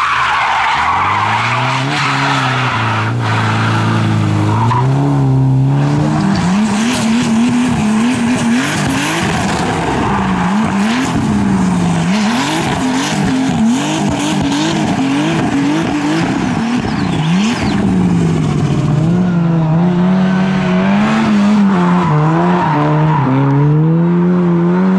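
Rally car engines revving hard, their pitch rising and falling every second or so as the throttle is worked through slides. Tyres skid and scrabble on loose gravel over the engine sound.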